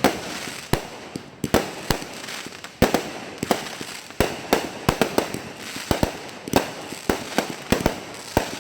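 Fireworks going off in an irregular string of sharp bangs, a few each second, with crackling between them.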